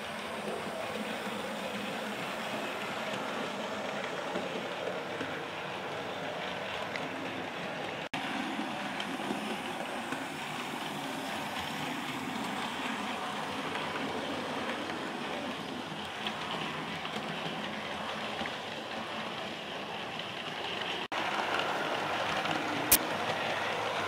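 Model railway train (model steam locomotive hauling coaches) running along the track: a steady rolling rattle of wheels on rail with motor hum. There is a single sharp click near the end.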